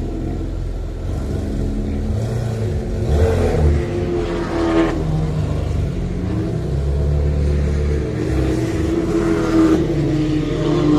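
Porsche 911's flat-six engine idling and being revved a few times, the revs rising and falling back each time.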